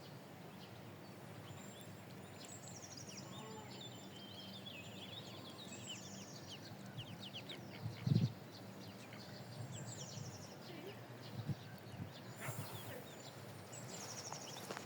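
Small birds chirping and twittering in quick high trills over a steady low outdoor background noise, with one short soft thump about eight seconds in.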